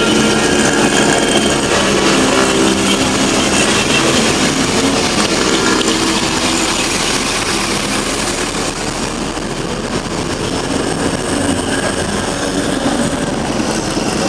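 Busy street traffic: bus, truck and car engines running close by, a dense steady noise that eases slightly about halfway through.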